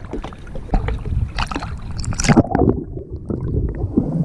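Water splashing and sloshing around an action camera held by a swimmer, with a few sharp splashes. About two and a half seconds in, the sound turns muffled and dull as the camera goes underwater.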